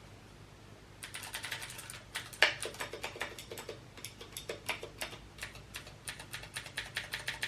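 Keys being pressed in quick succession on a Ducky One 2 Mini keyboard with Cherry MX Blue switches, giving rapid sharp clicks that start about a second in.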